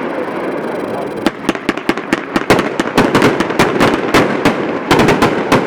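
Multi-shot consumer firework cake (the 23-shot 'Superimposing') firing: a rapid string of sharp bangs, about four or five a second, beginning about a second in.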